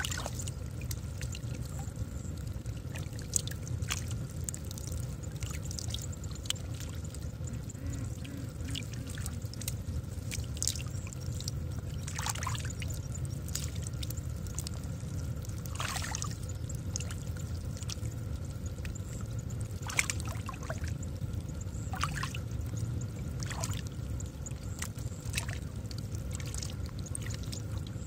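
Gloved hands groping and splashing through shallow muddy water, with separate wet sloshes every couple of seconds over a steady low rumble.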